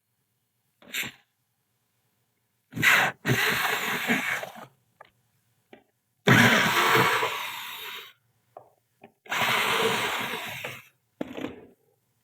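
A small power tool running in three bursts of about one and a half to two seconds each, each starting loud and tailing off, after a short click about a second in.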